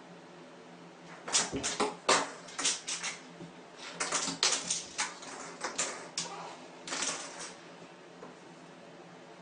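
A cat's claws scrabbling and paws knocking on the hard surface of a bathtub: a run of sharp clicks and scrapes in three clusters, starting about a second in and stopping before the end.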